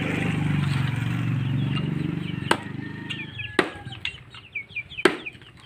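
Firewood being split by hand: three sharp chops about a second apart, the last near the end. Birds chirp behind them, and a low steady hum dies away before the first chop.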